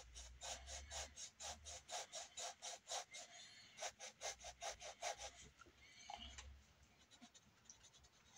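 A drawing tool scratching on paper in quick, even back-and-forth strokes, about five a second, thinning out to a few lighter strokes about five seconds in.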